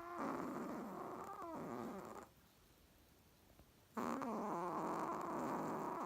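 Chihuahua snoring in its sleep. One long snore tails off about two seconds in, and after a pause of under two seconds another long snore begins.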